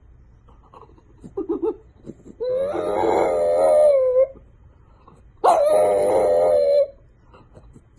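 A dog howling: two long, steady howls, with a few short yips before the first one.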